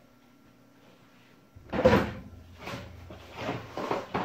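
A short run of four clattering handling knocks off to the side, the first the loudest, starting about a second and a half in after a quiet start.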